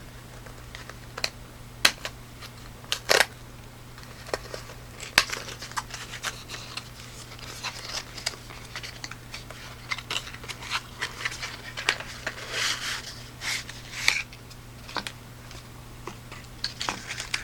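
Small cardboard product box being opened and its contents handled: scattered clicks and taps, with a denser stretch of rustling about twelve to fourteen seconds in. A low steady hum sits underneath.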